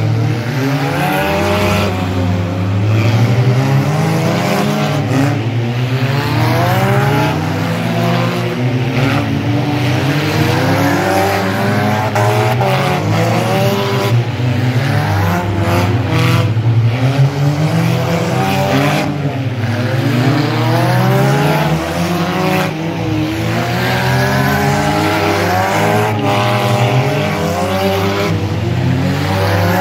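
Engines of several demolition derby cars revving at once, their pitches rising and falling constantly and overlapping as the cars drive around the dirt arena.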